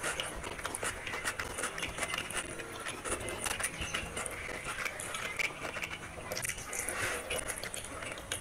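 Close-miked eating sounds: fingers mixing and squeezing rice and chicken curry on a ceramic plate, with wet chewing and many small clicks and smacks.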